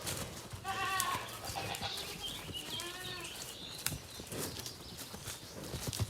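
Cattle bawling: two high calls, the first about half a second in and a second, rising-and-falling call about three seconds in.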